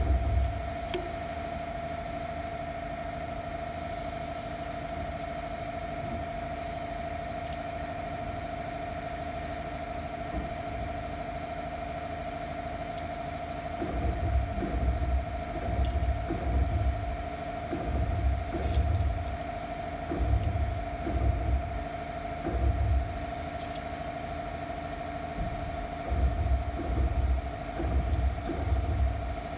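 Steady background hum with a constant whine. From about halfway, irregular low thuds and knocks as the steel base plate of a barber chair is handled and the fitting at its centre is turned by hand, with a few faint clicks.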